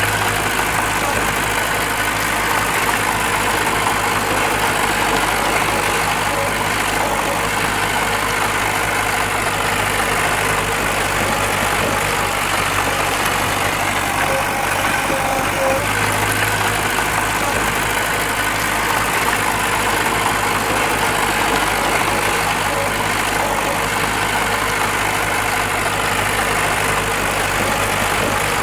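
Heavy earthmoving machinery's diesel engine running steadily at a constant level.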